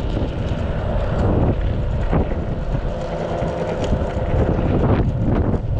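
Wind buffeting the microphone over the steady rumble of an electric skateboard's hard wheels rolling on rough, cracked asphalt.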